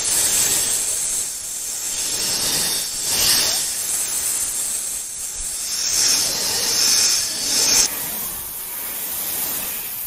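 Cobra hissing in long, breathy hisses that swell and fade about every three seconds. The last hiss cuts off suddenly near the end, leaving a quieter hiss.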